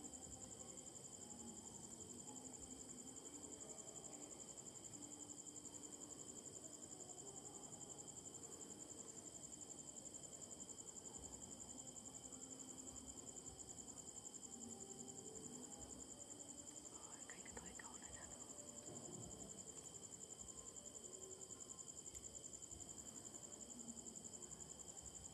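Faint, steady night-time chorus of crickets and other insects, trilling at several high pitches at once without a break.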